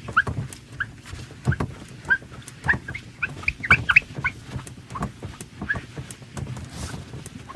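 Paper towel wiped across a glass mirror, squeaking in many short, irregular chirps over a low rubbing sound.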